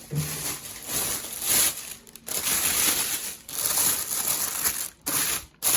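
Packaging around a new microwave crinkling and rustling as it is undone and pulled off, in several long stretches with brief pauses.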